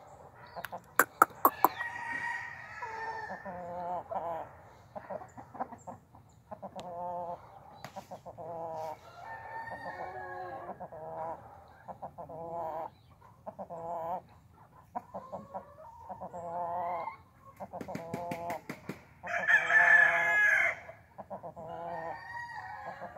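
Chickens clucking in repeated short calls, with one longer rooster crow about twenty seconds in, the loudest sound. A few sharp clicks come just after the start and again shortly before the crow.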